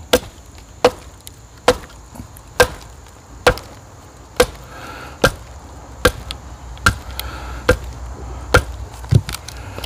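Batoning a log: a length of wood struck again and again on the spine of a Fobos knife set into the log, a steady run of about a dozen sharp knocks a little under a second apart.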